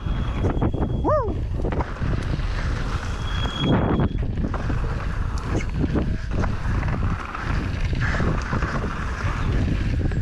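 Wind rushing over an action camera's microphone on a descending mountain bike, with knocks and rattles from the tyres and bike over the dirt trail. A brief bending whine sounds about a second in.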